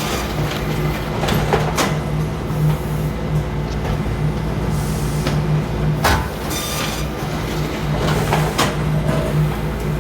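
Print-shop binding machine running: a steady, pulsing motor hum broken by sharp clacks and short hisses that come round again about every seven seconds as it cycles.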